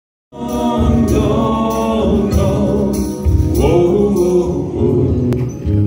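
Amplified live music through a stage sound system: a melody line that bends in pitch over a steady low accompaniment, cutting in abruptly just after the start.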